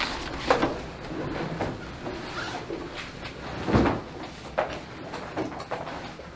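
Students packing up: rustling of bags and folders and scattered knocks of furniture being handled, with a louder thump about four seconds in.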